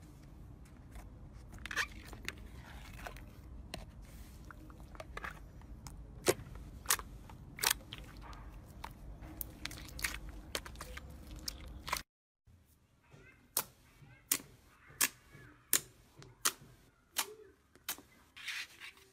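Clear slime being squeezed, poked and pressed by hand, giving sharp wet clicks and pops. About twelve seconds in the sound cuts out briefly. After that, a second clear slime is pressed in a steady rhythm, popping about once every 0.7 seconds.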